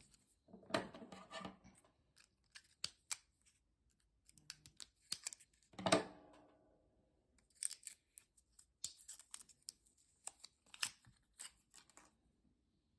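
Scissors blades scraping and clicking against the plastic of an opened car key fob while prying out its CR2450 coin cell battery, with a louder clack about six seconds in.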